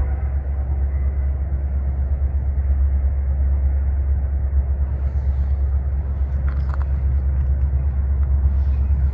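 Union Pacific diesel freight train approaching: a steady deep rumble of the locomotive and train, with no horn sounding.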